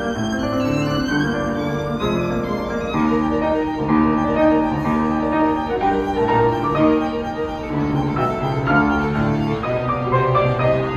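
A violin and a grand piano playing together as a duo, the violin holding long bowed notes over the piano.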